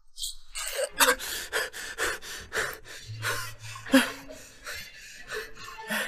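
A man gasping and panting hard for breath, a fast run of short gasps about three a second with a brief low groan in the middle, as he recovers from being choked by the throat.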